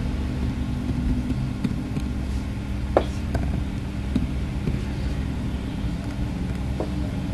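Steady low background hum with a few short, sharp clicks, the loudest about three seconds in.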